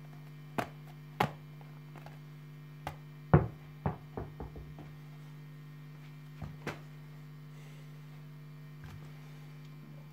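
A ball printed as a globe hitting the floor: two knocks near the start, then one loud bounce about three seconds in followed by quicker, fading bounces as it settles, and a couple of lighter knocks later. A steady electrical hum runs underneath and stops at the very end.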